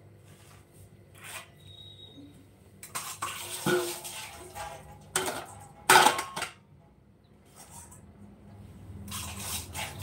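Dishes and cutlery clattering as they are handled, in several bursts of knocks and clinks, the loudest about six seconds in.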